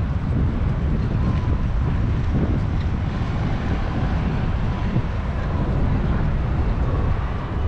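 Steady low rumble of wind buffeting a GoPro Hero 10 action camera's microphone, with no distinct events.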